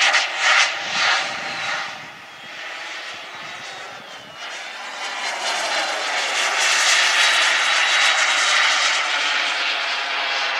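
Jetcat P-20 micro jet turbine of a model glider whining as the aircraft flies overhead. It fades about two seconds in, then grows louder again from about five seconds, its pitch sliding as it passes.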